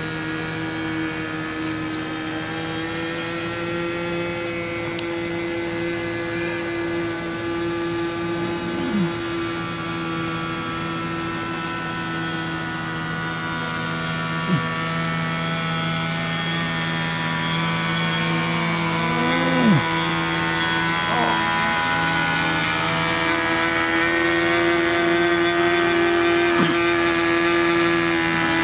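Small fuel-burning propeller engine of a remote-controlled blimp running at a steady pitch, a droning hum that grows louder as the airship comes nearer overhead. A few brief falling-pitch sounds cut in over the drone.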